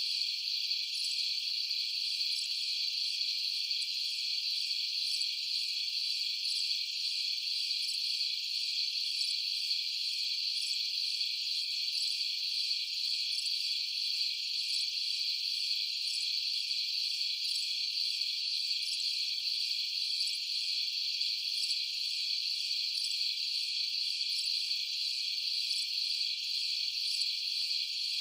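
A steady chorus of crickets at night, an unbroken high trill that keeps the same level throughout.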